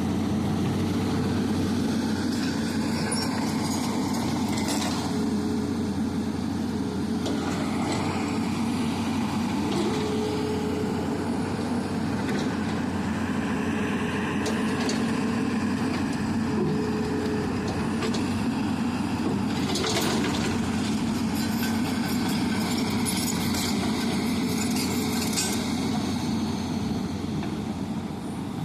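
Excavator's diesel engine running steadily, with a faint whine that comes and goes and a few brief knocks.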